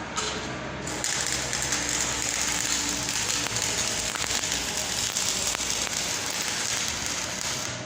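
Electric arc welding: the arc gives a steady, dense crackling hiss that breaks off briefly near the end.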